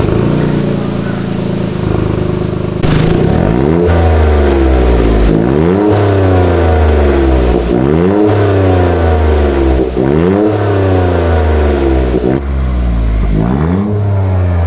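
Toyota GR Yaris's 1.6-litre turbocharged three-cylinder engine running through an Akrapovic titanium slip-on exhaust: idling steadily at first, then revved in repeated throttle blips about every two seconds, each rise in pitch falling back toward idle.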